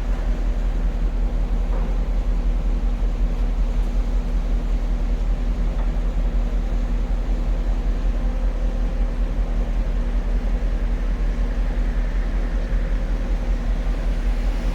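Heavy construction machinery's diesel engine running steadily, with a low rumble and a constant hum.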